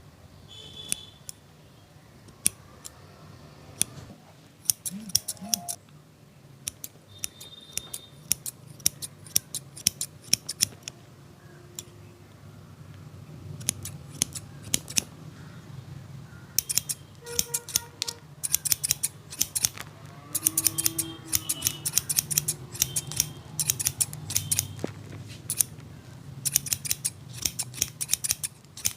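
Barber's scissors snipping hair in quick runs of sharp clicks, with short pauses between the runs.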